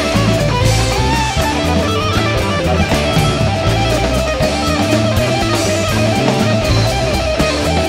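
Live rock band playing an instrumental passage: Les Paul-style electric guitars carry a lead line of held, wavering notes over drum kit and bass.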